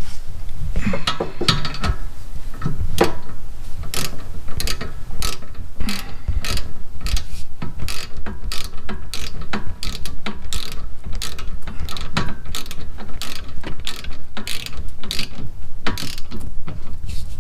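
Hand ratchet clicking in quick strokes, about two clicks a second with brief pauses, as the bolts of a rear brake caliper are run down tight.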